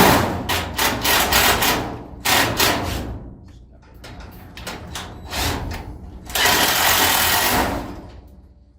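Power drill running in short bursts and then one longer run of over a second near the end, working screws through an aluminum angle brace into a metal garage door.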